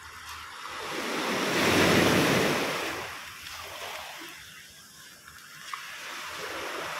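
Small sea waves breaking and washing up a pebble beach. The surge swells to a peak about two seconds in, draws back and fades, then builds again near the end.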